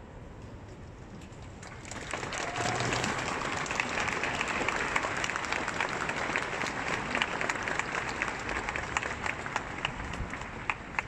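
Audience applause breaking out about two seconds in, a dense crackle of many hands clapping that thins out near the end.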